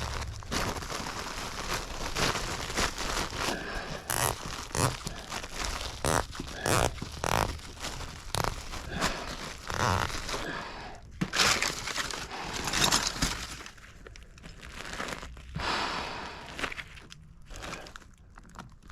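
Irregular crinkling and rustling with scattered knocks: air-conditioning duct materials being handled and fitted by hand.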